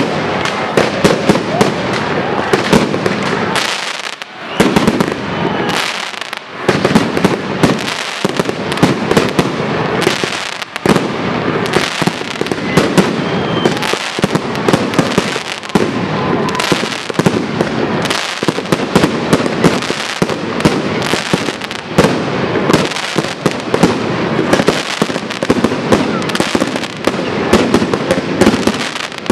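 Fireworks display: aerial shells bursting in a rapid, continuous barrage of bangs, with brief lulls about four and six seconds in.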